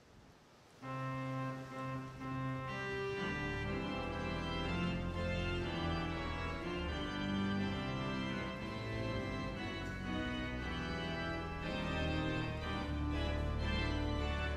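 Organ playing a hymn in slow, sustained chords, coming in about a second in.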